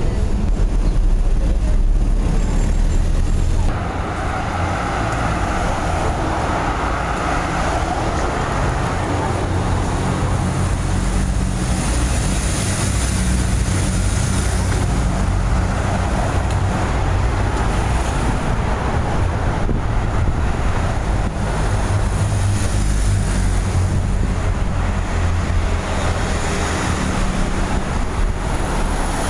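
Motorcade of SUVs and cars passing along a city street: steady traffic noise of engines and tyres. In the first few seconds a low rumble of wind on the microphone covers the traffic, before the sound changes abruptly.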